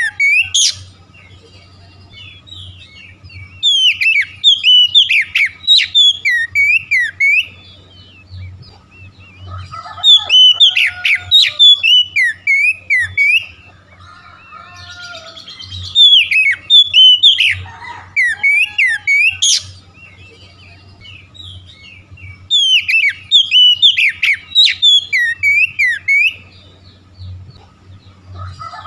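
Oriental magpie-robin (kacer) singing: loud, fast strings of varied whistles and chirps in bouts a few seconds long, repeating about every six seconds with short pauses between.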